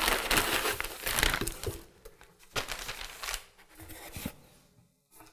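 Kraft wrapping paper crinkling and rustling as a paper-wrapped package is handled and lifted out of a cardboard box. The rustling is heaviest for the first two seconds, comes in a few shorter bursts after that, and stops shortly before the end.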